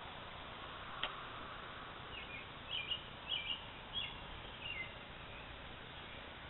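A small bird chirping, a quick series of short high notes, some sliding down, over a steady outdoor hiss. A single sharp click sounds about a second in.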